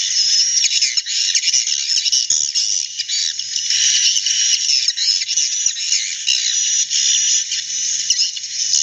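A large flock of edible-nest swiftlets twittering together: a dense, continuous chorus of high, overlapping chirps and trills.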